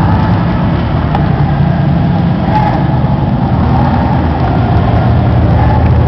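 Steady loud low rumble picked up by a gun-mounted camera's microphone as the player moves.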